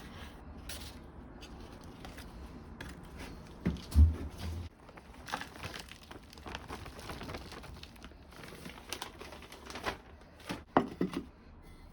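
Plastic plant pots being handled: crinkling and rustling with scattered clicks, and a heavy thump about four seconds in.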